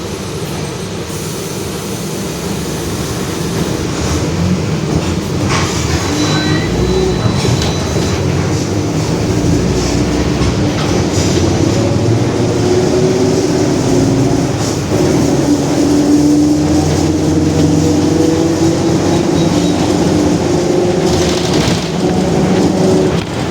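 Mercedes-Benz OF-1721 Bluetec 5 city bus under way, heard from on board: engine and drivetrain rumble with a gear whine from the differential, which is howling. The whine climbs in pitch and the level rises from about four seconds in as the bus picks up speed, then dips briefly near the end.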